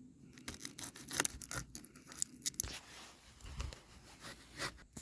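Dry onion skins crackling and tearing as onions are peeled by hand: a quick run of irregular crackles that thins out after about two and a half seconds.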